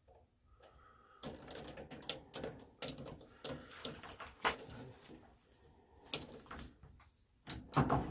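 Irregular metal clicks and knocks as a lathe's collet chuck is tightened hard by hand with its chuck key. One knock about halfway is louder, and a louder clatter comes near the end.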